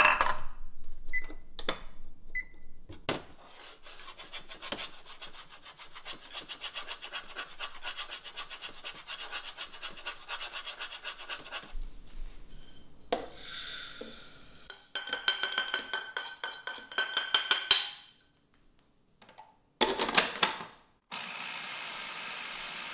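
Toasted sesame seeds being stirred and scraped in a frying pan with a quick rhythmic rasp, then tipped from the pan into a food processor bowl in clattering bursts. Near the end the food processor starts and runs steadily, grinding the seeds to a fine powder for tahini.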